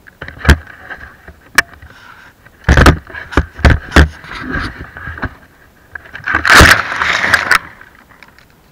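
Handling noise on an action camera: a string of sharp knocks and scrapes with rustling as it is moved through branches and grass. The loudest knock and rustle come about two thirds of the way in.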